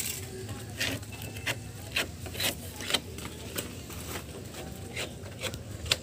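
Metal putty knives scraping polyester body filler in short, irregular strokes, first blade against blade, then along the edge of a wooden table.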